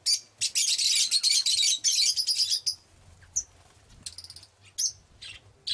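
Birds chirping: a dense run of rapid high chirps lasting about two seconds near the start, then scattered short calls.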